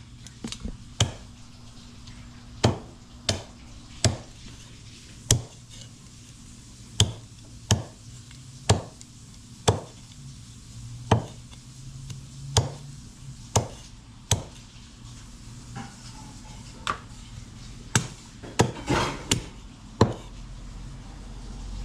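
A heavy knife chopping raw chicken on a board: single sharp strikes at an uneven pace, roughly one a second, with a quicker run of blows near the end.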